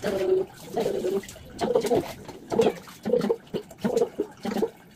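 A domestic cat meowing over and over in distress at being bathed, a quick string of about seven short, low meows.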